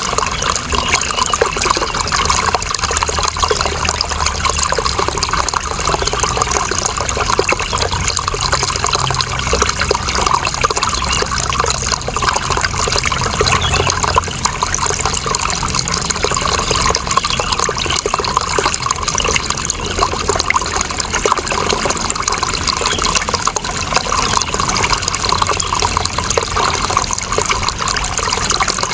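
Water running and trickling steadily, an even rush with no pauses or changes.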